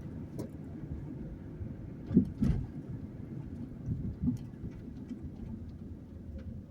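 Low steady rumble of a car's engine and road noise heard inside the cabin, with a couple of short knocks about two seconds in.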